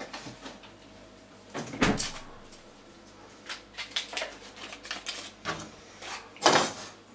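Refrigerator door opened and later shut, with scattered light knocks of kitchen handling in between; the loudest knocks come about two seconds in and near the end.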